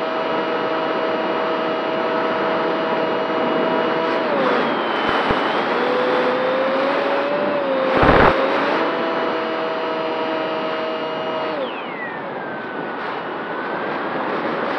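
Onboard sound of a model Spitfire's motor and propeller in flight: a steady whine with air rushing past, dropping and wavering in pitch about four seconds in, then rising again. There is a brief loud rush of air near the middle as the plane dives toward the trees, and near the end the whine falls away in a smooth glide as the throttle is cut back.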